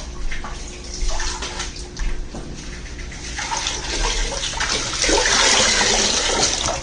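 Water splashing and sloshing, irregular, and louder in the second half.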